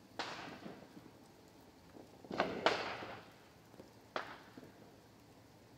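Distant fireworks going off: four sharp bangs, each fading with a trailing echo. One comes at the start, two in quick succession just past two seconds, and one about four seconds in.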